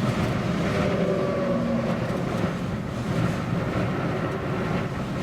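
High wind buffeting a parked Jeep and the microphone: a steady, low, rushing noise.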